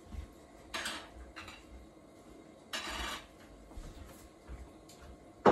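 Kitchen handling sounds: two short rustles about a second and three seconds in, soft low knocks, then a single sharp knock at the very end.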